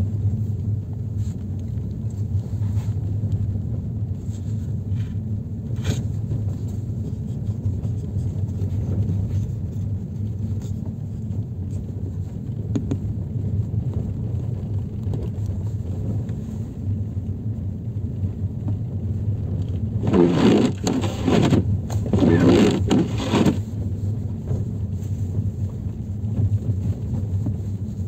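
Steady low rumble of a car's interior while driving on a snowy, icy road: engine, tyre and road noise. About twenty seconds in come two louder scraping rushes of a second or so each.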